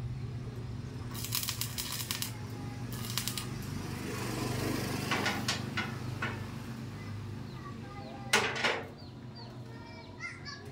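Clicks and clattering of hand-tool work on a sidecar's sheet-metal body and steel frame, with one sharp knock about eight seconds in that is the loudest sound. A steady low hum runs underneath, and birds chirp near the end.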